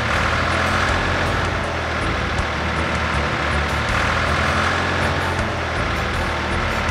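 Heavy truck engine running steadily, an animated vehicle sound effect.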